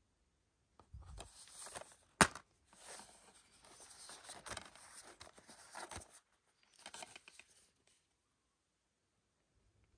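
Plastic Blu-ray case being handled and opened: rustling and rubbing in the hands, with one sharp snap a little after two seconds as the case clicks open, and more handling noise of the plastic case afterwards.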